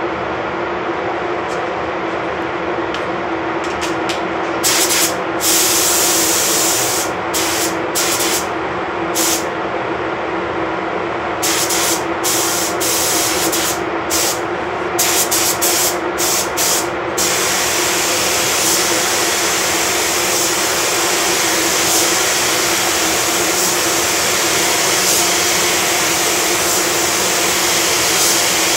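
Gravity-feed paint spray gun hissing with compressed air as black paint is sprayed on a van: many short triggered bursts from about five seconds in, then a continuous spray through the second half. Under it, a steady ventilation drone with a low hum runs the whole time.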